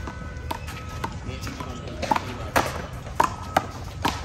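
One-wall handball rally: a small rubber ball smacking off the concrete wall, the court and players' gloved hands, about eight sharp hits at irregular spacing.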